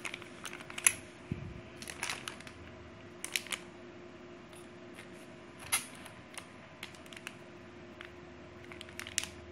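Small plastic camera mounts and packaging being handled, making scattered clicks and rustles at irregular intervals over a faint steady hum.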